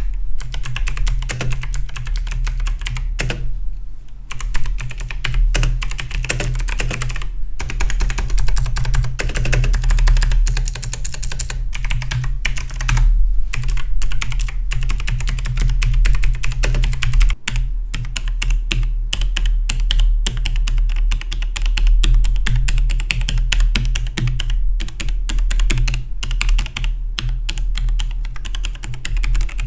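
Rapid, continuous typing on Logitech G Pro-series mechanical gaming keyboards, the key clicks packed closely together, with a brief break just past halfway.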